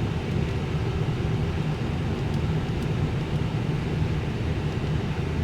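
Steady low drone of a parked Airbus A319's cockpit, with its ventilation and equipment fans running, and a few faint clicks.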